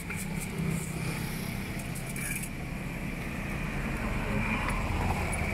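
A small engine running steadily with a low rumble, with a few light clicks and clatter of utensils in the first couple of seconds.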